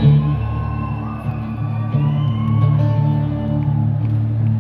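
Live rock band music in an arena, recorded from the audience: sustained low chords with guitar over them.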